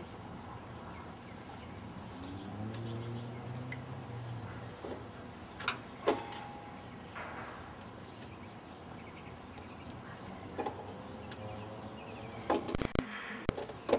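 Scattered sharp metallic clicks and clinks of hand tools working on an engine's coolant line fittings, one of them ringing briefly, with more of them near the end over a faint low hum.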